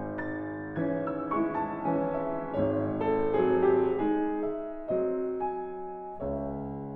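Solo piano music: chords and single notes struck one after another and left to ring out.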